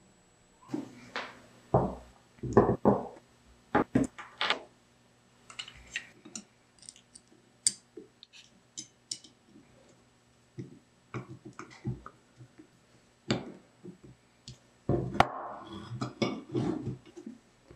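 Small metal telephone magneto parts handled and fitted together on a workbench: irregular light clicks and knocks, some with a brief metallic ring. A spell of rubbing and scraping comes near the end.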